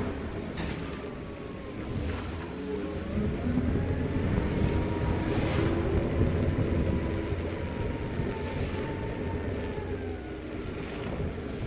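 Vehicle engine running on the move, with a low wind rumble on the microphone; a faint whine rises and falls in pitch through the middle.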